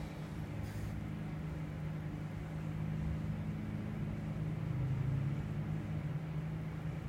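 A steady low mechanical hum over a faint hiss, with a brief faint rustle about a second in.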